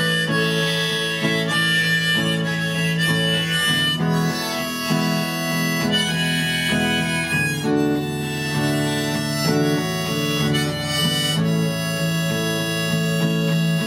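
Harmonica playing a melody over strummed acoustic guitar: an instrumental break in a slow blues song.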